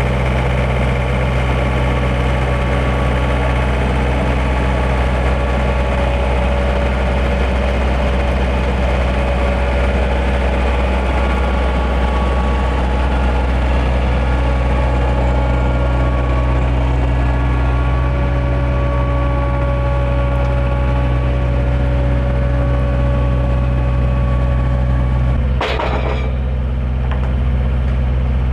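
Backhoe engine running steadily, with a sharp knock near the end, after which the higher whirring drops away.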